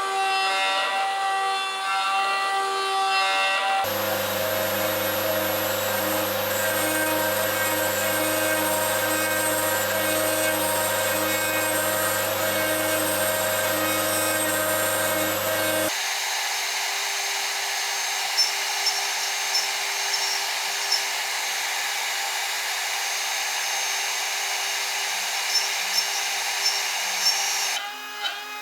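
CNC spindle milling: the spindle's steady whine over the noise of the cutter taking material, in successive example cuts whose pitch and character change abruptly about 4 and 16 seconds in. In the last part, short sharp ticks sound over the cut.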